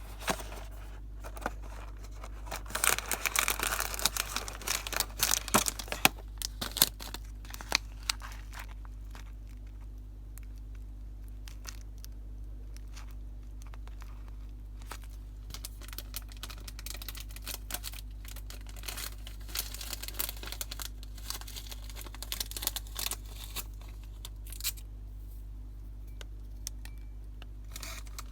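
Packaging being torn open and crinkled in two spells, a few seconds in and again in the second half, over a steady low hum.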